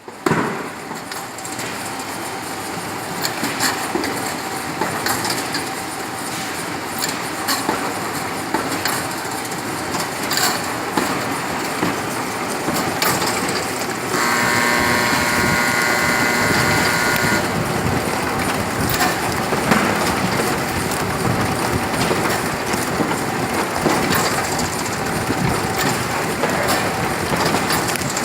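Semi-automatic carton folder-gluer running, a steady mechanical clatter with irregular clicks. A high whine of several steady tones joins for about three seconds midway.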